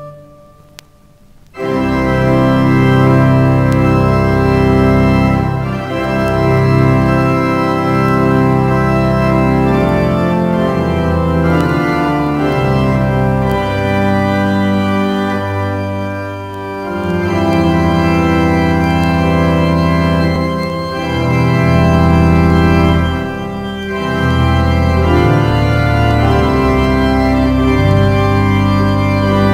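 Eton College Chapel pipe organ playing loud, sustained full chords with deep bass notes. The music comes in about a second and a half in, after a short pause.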